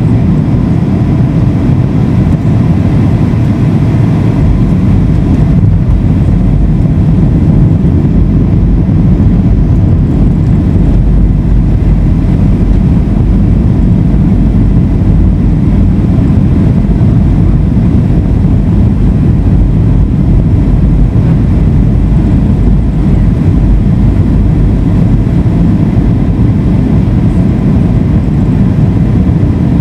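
Steady cabin noise inside a Boeing 757 on approach: an even, low rumble of the jet engines and airflow heard through the fuselage.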